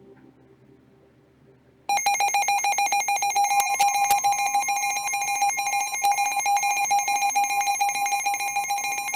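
Emergency Alert System attention signal: a loud, harsh, steady electronic alert tone that starts suddenly about two seconds in and is joined by a second, slightly higher tone about a second and a half later, marking the start of a new emergency alert.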